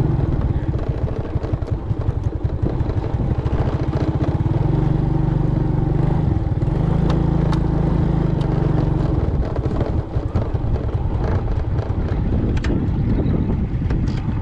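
Small motorbike engine running at low speed as it is ridden slowly over a bumpy dirt track and brought to a stop, with a few sharp clicks and knocks in the second half.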